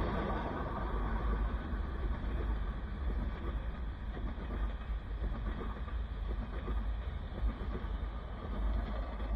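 Freight train's covered hopper cars and caboose rolling past: steady noise of steel wheels on the rails, with a few louder knocks.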